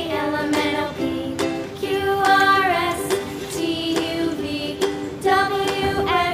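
Children's song: a voice singing a bouncy melody over light plucked accompaniment with a steady beat.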